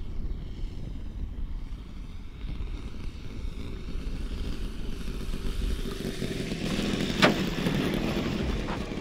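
Radio-controlled model airplane landing on a gravel strip: its motor grows louder as it comes in, a sharp knock about seven seconds in as it touches down, then its wheels rolling on gravel. Wind on the microphone throughout.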